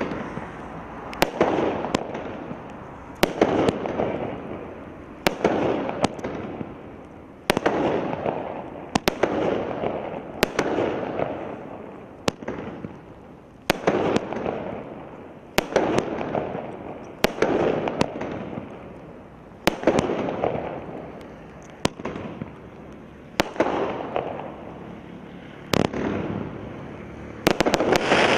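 Consumer fireworks cake firing shot after shot: a sharp bang about every one to two seconds, each followed by a hissing wash from the roaring titanium chrysanthemum bursts.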